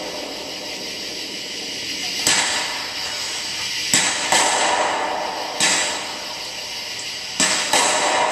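Aerial fireworks bursting: about six sharp bangs, two of them close pairs, each fading out over a second or so.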